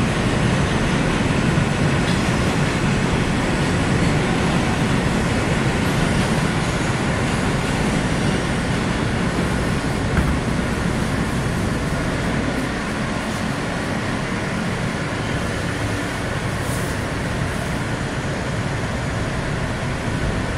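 Steady rumble and rush of an R160 subway car running on the rails, heard from inside the car, with a single click about ten seconds in. It gets a little quieter in the second half.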